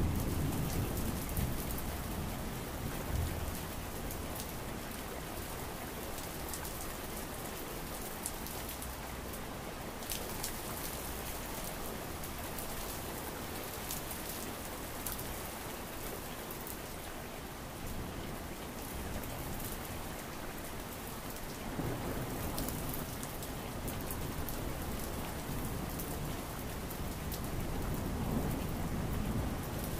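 Steady rain patter and hiss, with low rolling thunder rumbles near the start and again over the last third.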